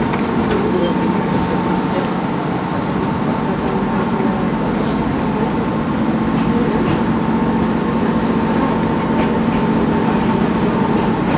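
Cab interior of a Chichibu Railway 1000 series electric train, a former JNR 101 series, moving slowly out of a station. Steady running noise with a constant low hum and a higher whine over it, and a few faint clicks.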